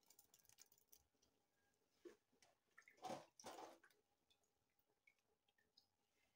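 Near silence: room tone, with a few faint soft noises about two and three seconds in.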